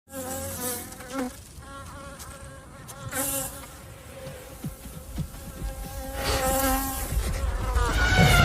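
Insects buzzing, a wavering drone that comes and goes, with a low rumble swelling near the end.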